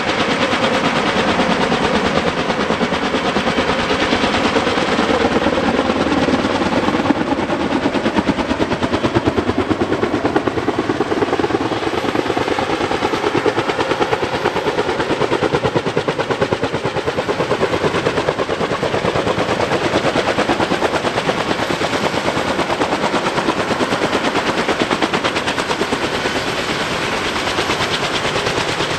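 Kaman K-MAX helicopter's intermeshing twin rotors beating with a rapid, even blade slap over the running turbine as the helicopter comes down and sets down to land.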